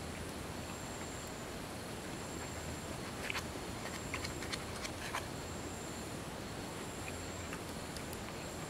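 Night insects calling in a steady high drone, with a few sharp clicks clustered a few seconds in.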